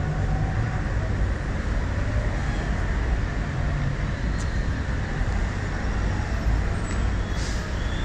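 Steady city street traffic noise, a low rumble of vehicles with no break, and a faint click about four and a half seconds in.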